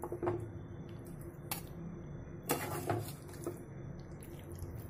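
A metal serving spoon scraping and knocking against a cooking pan and a plate as cooked chicken curry is spooned out, in a few scattered clinks and scrapes, the busiest stretch between about two and a half and three and a half seconds in, over a faint steady hum.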